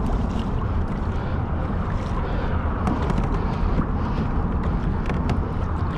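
Steady wind rushing over the microphone, with water lapping at the kayak.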